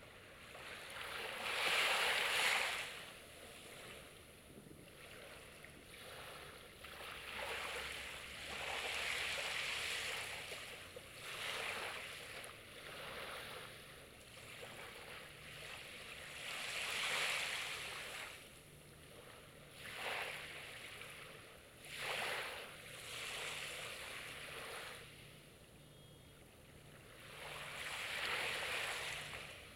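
Sea waves breaking and washing on the shore, each surge swelling and fading every few seconds, the loudest about two seconds in.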